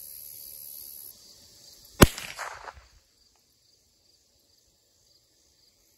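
A single shot from a Smith & Wesson SW22 Victory .22 LR pistol about two seconds in: one sharp crack followed by a short echo that dies away within a second.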